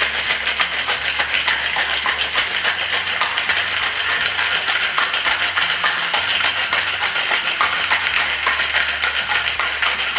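Ice cubes rattling and knocking inside a steel-and-glass Boston shaker as a cocktail is shaken hard, a fast, even rattle.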